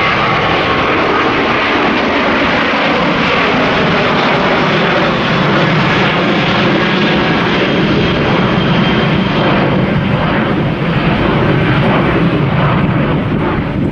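Twin-jet airliner climbing out after takeoff: steady, loud jet engine noise with a deep rumble that grows slightly toward the end.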